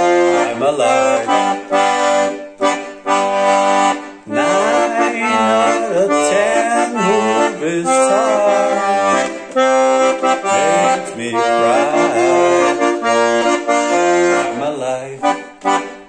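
Piano accordion playing sustained chords under a melody, the notes changing every second or so, then dying away near the end.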